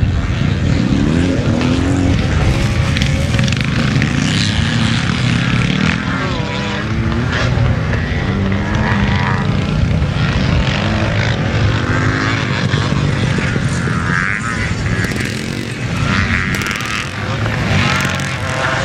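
Classic motocross bikes racing, several engines running at once and revving up and down, with the pitch rising and falling as bikes accelerate and shut off.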